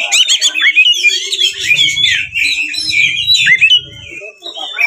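Oriental magpie-robin (kacer) singing a fast, varied song of rising and falling whistles and chattering notes, with a short break a little after four seconds in.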